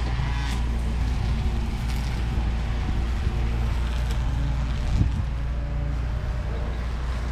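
Small two-stroke motorized-bicycle engine running steadily, with some wind rumble on the microphone.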